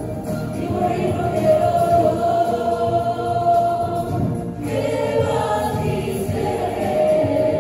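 A musical number: several voices singing together over a backing track, in long held notes, with a brief break in the music about four and a half seconds in.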